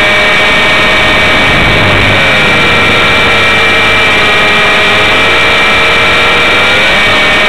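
450-class RC helicopter's motor and rotor whine, heard close up from on board over a rush of air. The whine's pitch sags for several seconds as it is thrown through manoeuvres and comes back up near the end.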